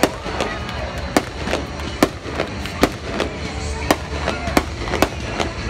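Aerial fireworks shells bursting overhead: a string of sharp bangs at irregular spacing, roughly one or two a second, each with a short echo.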